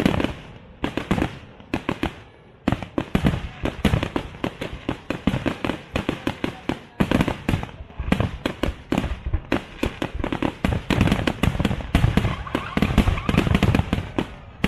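Aerial fireworks display: rapid volleys of shells bursting, many sharp bangs a second with crackling between them. The volleys thin out a couple of seconds in, then build to a dense barrage near the end.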